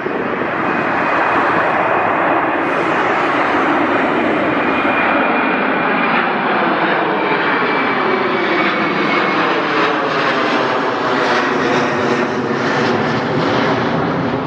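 Airbus A330-200 twin-engine jet airliner passing low overhead on approach with its landing gear down. Its engines make a loud, steady rush, with a faint high whine through the first two-thirds.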